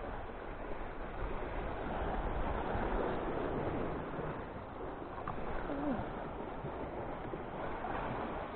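Sea washing against shoreline rocks with a steady rush, with wind buffeting the microphone.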